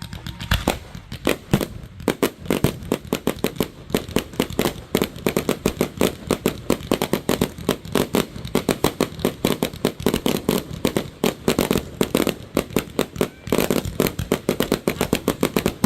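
Fireworks going off in a rapid, unbroken string of sharp pops and bangs, several a second.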